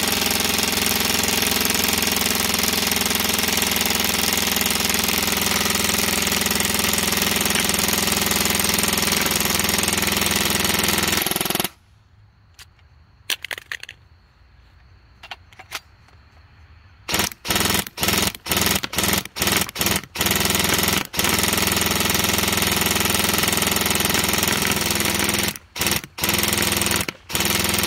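G&G Cobalt Kinetics airsoft electric rifle firing full-auto: a rapid mechanical rattle in one long sustained burst. The rattle stops about twelve seconds in, then after a pause of about five seconds comes back as a string of short bursts, and then as continuous fire with a few brief breaks near the end.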